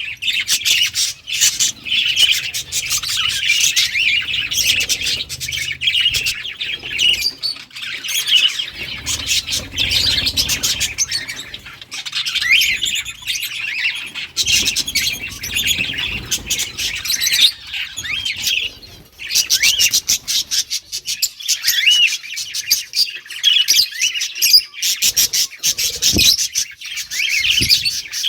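A colony of budgerigars chirping and chattering nonstop, many short calls overlapping. Two brief low thuds come near the end.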